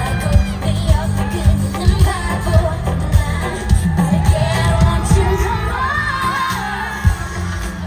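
Live K-pop concert music through a stadium sound system: singing over a heavy, pulsing bass beat.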